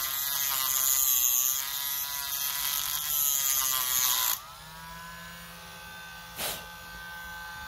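Dremel rotary tool with a small cutoff wheel grinding into a screw head on a Chinese PZ27 carburetor, with a loud, wavering, hissy grinding. About four seconds in the wheel comes off the work and the motor speeds up, then keeps running freely at a steady pitch, with one brief knock near the end.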